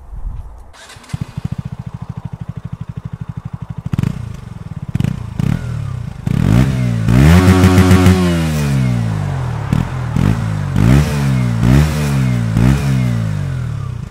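Single-cylinder motorcycle engine idling with an even beat, then revved in a run of quick throttle blips, each rising and falling in pitch. The longest and loudest rev is held high about seven seconds in.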